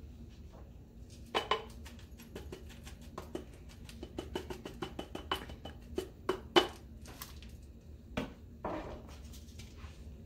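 Plastic seasoning shakers shaken over a small glass bowl: a quick run of light clicks and rattles as dry seasoning falls into the bowl, with a few sharper knocks of bottle and lid.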